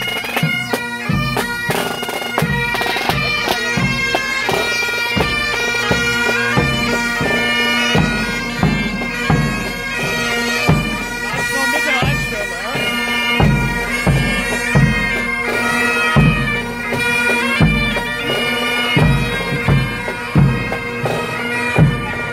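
A pipe band playing: Highland bagpipes sound a tune over their steady drones, while a drum beats a regular marching pulse.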